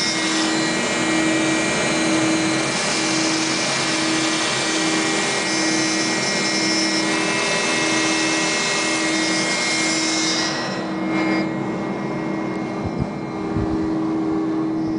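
CNC router running, a loud steady whir over a steady hum. The high part of the noise falls away about ten and a half seconds in, with a couple of knocks near the end.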